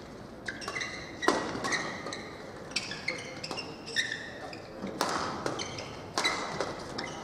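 Badminton shoes squeaking on the court mat in short, high chirps as players shuffle into position, with a few sharp knocks mixed in.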